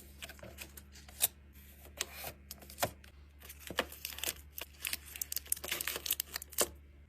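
Drinks and snacks being handled while restocking a mini fridge: a string of sharp taps and clicks with crinkling of packaging, busiest in the second half and stopping near the end.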